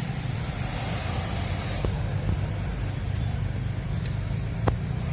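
A street-light maintenance truck's engine running steadily. A thin high whine stops about two seconds in, and there are a couple of light clicks.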